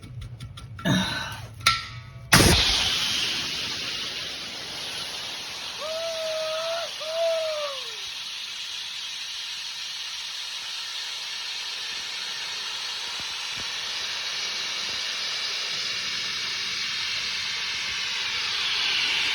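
Air compressor tank drain: after two knocks, a sudden blast about two seconds in as the blockage clears, then pressurized air and water hissing steadily out of the open drain. The tank is still under pressure, which drives the water out.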